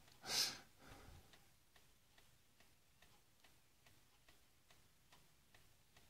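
A short breath, then faint, even ticking, about two to three ticks a second.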